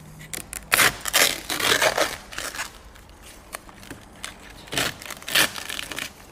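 Duct tape being peeled and ripped off a broken plastic wing mirror housing, in several short noisy tears: a cluster in the first half and a few more near the end.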